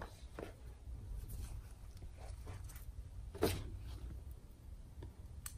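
Hands handling jewelry packaging: a cloth drawstring pouch, tissue paper and a small cardboard box. There are a few soft taps and rustles, with one louder tap about three and a half seconds in, over a low steady hum.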